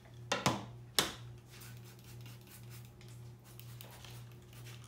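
Two short clatters of plastic brewing gear being handled, about half a second and a second in, over a steady low hum.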